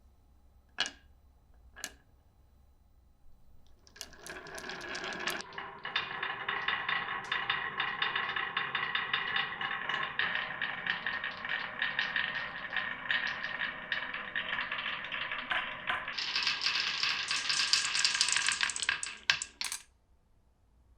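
Marbles rolling and clattering along a marble run track. Two single clicks come in the first two seconds, then a continuous rolling rattle full of small knocks starts about four seconds in, turns sharper and louder near the end, and stops with a few last clicks.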